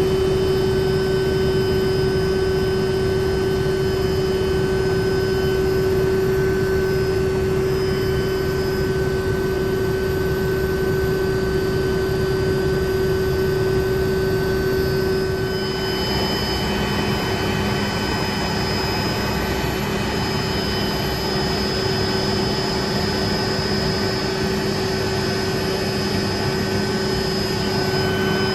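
Helicopter in flight, heard from the cabin: a steady engine and rotor drone with a constant hum.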